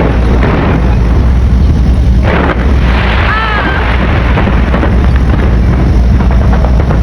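Fireworks bursting in rapid succession: a dense run of bangs and crackles over a constant low rumble of booms, with crowd voices mixed in.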